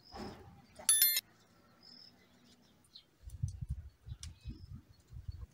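Birds chirping, with one loud, shrill call lasting about a third of a second, about a second in, and faint high chirps after it. Low rumbling bumps run through the second half, like wind buffeting the microphone.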